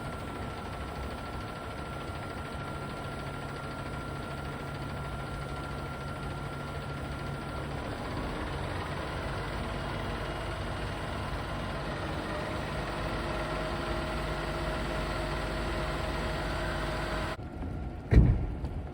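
Boom truck engine running steadily, with faint held tones that shift in pitch partway through. The sound cuts off shortly before the end, followed by a single loud thump.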